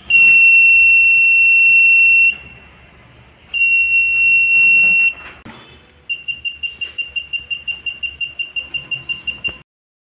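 The laser tripwire alarm's buzzer sounding, the alarm tripped by the broken beam: two long, steady, high-pitched beeps, then rapid beeping at about seven a second that cuts off abruptly.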